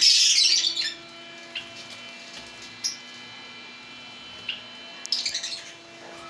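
Caged zebra finches calling: a burst of high chattering at the start, a few single short calls, then another short burst about five seconds in.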